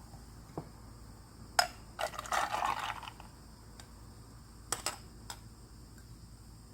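Kitchen handling sounds: a few sharp clinks of dishes and about a second of liquid pouring or running water.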